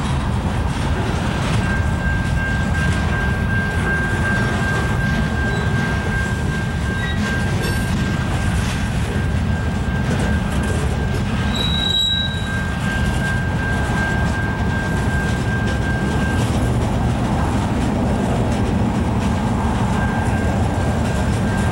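Freight cars (boxcars, gondolas and hoppers) rolling past at steady speed, their wheels rumbling on the rails. A steady high-pitched wheel squeal sounds over the rumble from about two seconds in until about three-quarters through, and comes back near the end.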